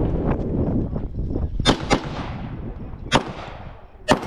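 Handgun shots fired during an IPSC stage: a quick pair about a quarter second apart, then two single shots roughly a second apart, each with a short echo.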